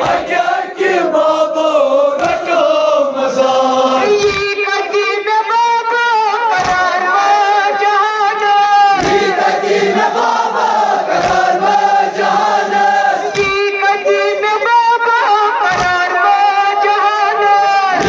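Male voices chanting a Kashmiri noha, a Shia lament, in a steady melodic line with a choir joining in. A low thump about every two seconds keeps the beat.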